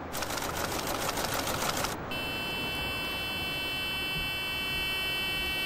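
Typewriter-clatter sound effect, a rapid run of key clicks over a hiss, stopping about two seconds in. A steady electronic drone of several high tones follows.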